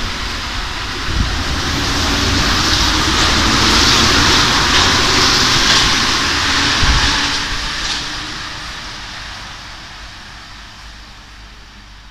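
RATP MP73 rubber-tyred Métro train running out of the station, a loud hiss of tyres and running gear over a low rumble that swells, then fades away over the last few seconds.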